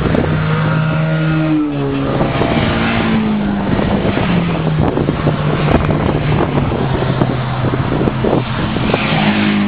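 Racing cars' engines, Mitsubishi club cars, accelerating hard down the straight away from the listener. Their engine notes climb and drop back with gear changes, while wind buffets the microphone with a crackling rumble.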